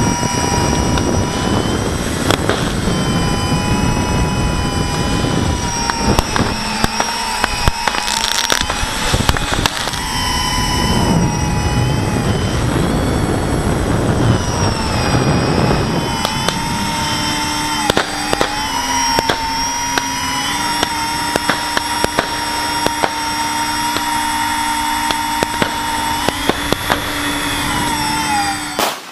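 Quadcopter's electric motors and propellers whining, heard through the onboard camera, the several tones sliding up and down as the throttle changes. Sharp fireworks cracks and pops go off throughout.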